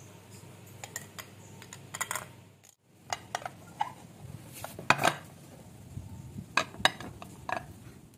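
Irregular clinks and scrapes of a metal skimmer spoon against a ceramic bowl and a steel pot as rice is packed into the bowl, then ceramic knocking on ceramic as the bowl is turned out onto a plate. The loudest clinks come about five seconds in.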